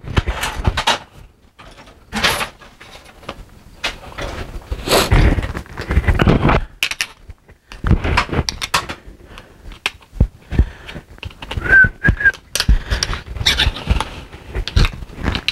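Hands working with tools and small plastic and metal parts at a workbench: irregular knocks, clicks and clatter with stretches of rustling. About twelve seconds in there are two short high squeaks.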